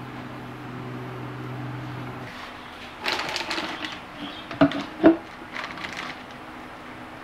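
A steady low hum that stops about two seconds in, then the clatter of utensils and containers being handled on a kitchen counter, with two sharp knocks half a second apart.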